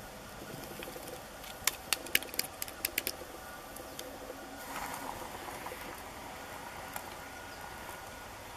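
Small wood campfire crackling, with a quick run of sharp pops from the burning logs.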